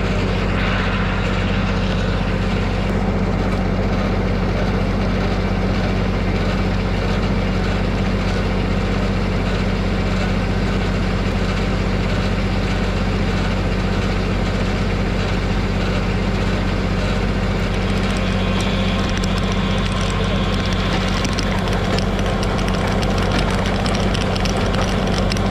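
LS compact tractor's diesel engine running at a steady speed, an even low drone that holds the same pitch throughout.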